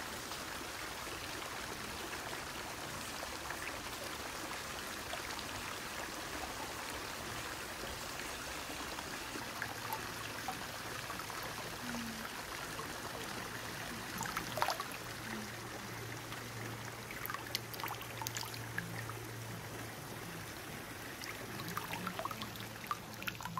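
Hot-spring water pouring in a thin, steady stream from the inlet into an open-air bath, with a few small splashes about halfway through.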